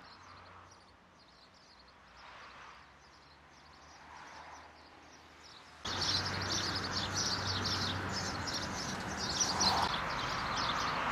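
Small birds chirping busily in rapid short notes over a faint outdoor background. About six seconds in, the sound jumps louder, with a steady outdoor hiss and stronger chirping.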